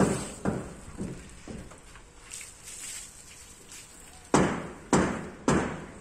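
Footsteps: a regular series of thuds about two a second, stopping for about two seconds in the middle and coming back louder near the end.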